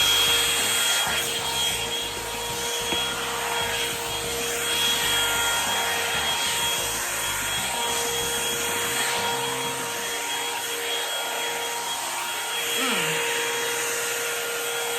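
Revlon One-Step hair dryer brush running and drying hair: a steady motor whine over rushing air.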